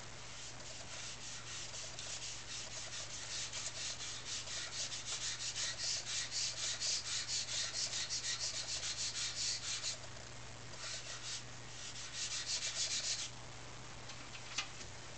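Stick charcoal scratching across drawing paper in quick repeated strokes, about three a second, with a pause about ten seconds in and two shorter runs after it.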